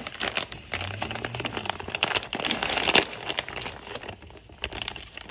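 Plastic packaging crinkling and rustling as it is handled by hand, with many irregular sharp crackles and a short lull near the end.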